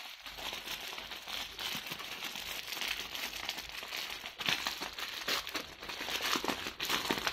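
Clear plastic packaging crinkling as it is handled and unwrapped: the plastic-wrapped bundle of diamond painting drill bags. It is a continuous run of crackles with scattered small clicks, a little louder near the end.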